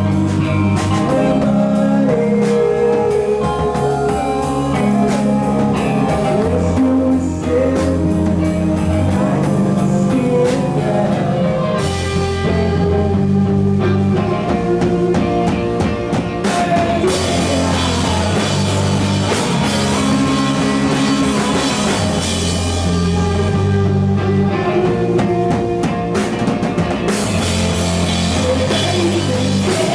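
Loud grunge rock played by a band: distorted guitars, a bass line that moves to a new note every second or two, a drum kit and singing. It gets brighter and denser in the middle and goes thin for a moment near the end.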